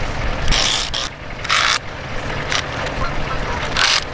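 A JCB compact track loader's diesel engine idles steadily with a low rumble. Four short hissing bursts cut in over it about a second apart.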